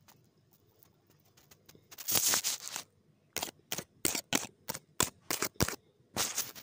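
A young child drinking from a small plastic drinking-yogurt bottle held to her lips, with sucking slurps: one longer slurp about two seconds in, then a quick run of about eight short slurps, and another longer one near the end.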